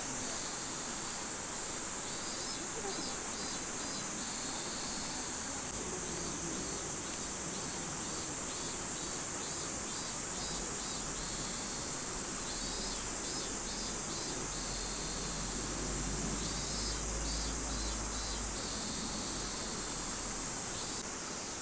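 Insects droning steadily at a high pitch, with bursts of rapid pulsing calls every few seconds.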